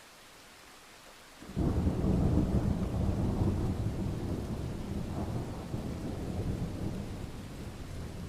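Steady rain, then about a second and a half in a sudden loud peal of thunder breaks and rolls on as a deep rumble, slowly fading.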